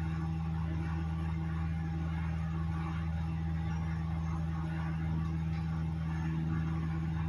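A steady low hum that runs evenly.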